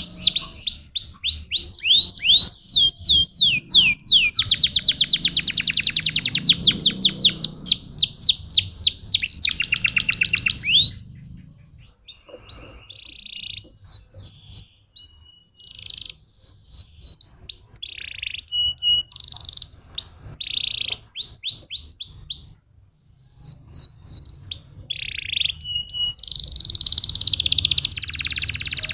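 Domestic canary singing: long, fast runs of repeated whistled notes for the first ten seconds or so, then a quieter stretch of shorter, broken phrases, and a loud fast trill again near the end.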